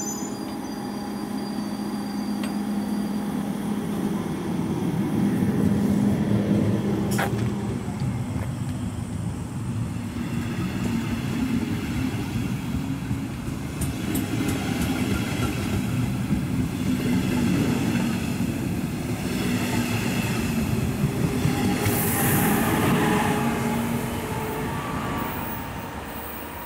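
Double-deck electric regional trains running past close by: a continuous rumble of wheels on rail. In the middle part there is a thin, high wheel squeal. The sound fades near the end.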